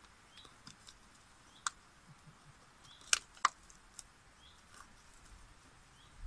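Quiet handling noises of fresh mushrooms being picked over on a cutting board: a few sharp clicks and light taps, the loudest two about a third of a second apart about three seconds in.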